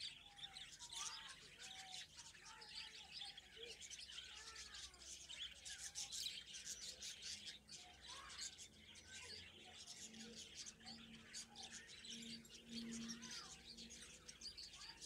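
A colony of caged finches chirping and twittering, many short, quick calls overlapping without a break.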